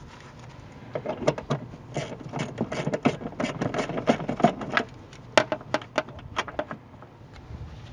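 Hand ratchet clicking in quick runs as 8 mm bolts are backed out of a crankcase ventilation filter housing. The clicking starts about a second in and thins out after about five seconds.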